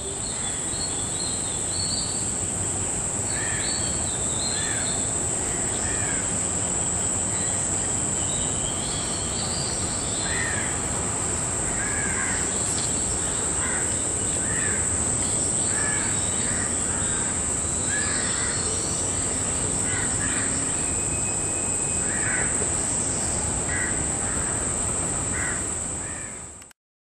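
Forest ambience: birds calling again and again, short calls every second or so, over a steady high-pitched drone like insects. The sound cuts off abruptly just before the end.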